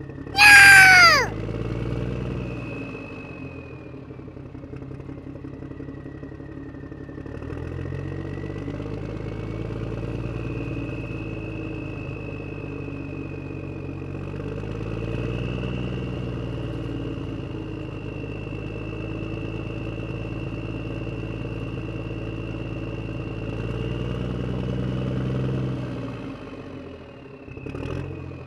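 Radio-controlled construction models running: a steady low engine-like hum under a thin high motor whine that drifts up and down in pitch with speed. About a second in there is a loud, brief squeal falling steeply in pitch.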